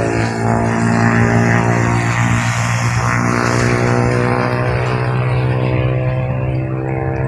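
Small boat's engine running steadily at a constant speed, a low even drone with water and wind noise over it.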